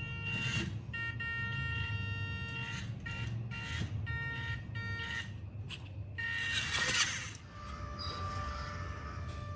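Scale RC crawler's electric motor and gearbox whining in stop-start throttle bursts, a steady high whine cutting in and out over a low drivetrain rumble, with a short scraping rush about seven seconds in.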